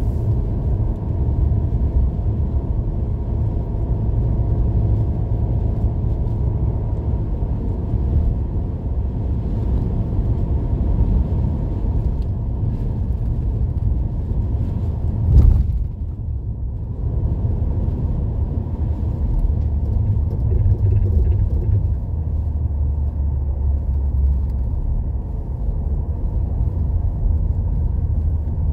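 Inside a moving car's cabin on a snow-covered road: a steady low rumble of tyres and engine, with one sharp knock about halfway through.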